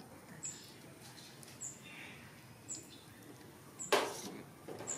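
A short, high chirp repeating steadily about once a second in the background, with a sharp clatter about four seconds in that is the loudest sound.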